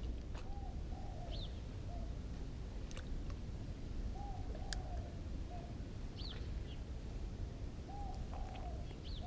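A dove cooing: a low three-note phrase repeated three times, about every four seconds. Each phrase is followed by a short, higher chirp, and a few faint clicks come in between.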